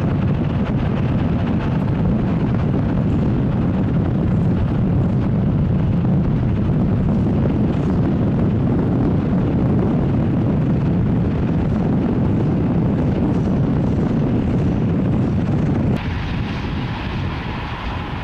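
Diesel-hauled passenger train running past at speed, a loud, steady low rumble. About sixteen seconds in, the sound cuts to a quieter, more distant train with a steady whine.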